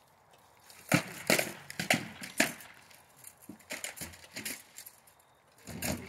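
Hard, sharp knocks of rattan weapons striking shields and armour in SCA heavy combat: a quick run of four loud blows early, a few lighter clacks in the middle, and another loud blow near the end.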